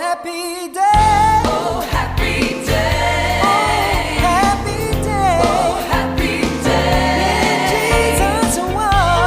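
Background song with a singing voice over a steady beat, the beat coming in about a second in.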